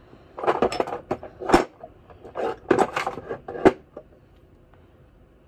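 Clinks and knocks of small hard skincare bottles and containers being handled and set down on a tabletop, in two short clusters about a second apart.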